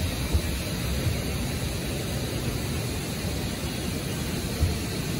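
Steady rushing water at a dam, an even hiss with a few brief low thumps.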